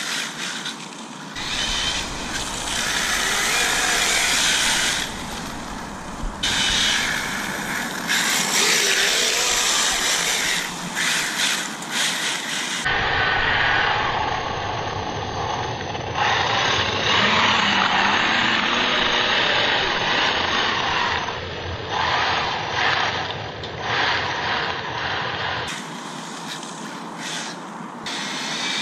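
1/8-scale Arrma Kraton EXB electric RC truggy being driven hard on a 6S LiPo: motor and tyre noise surging and easing in repeated bursts as it accelerates and brakes.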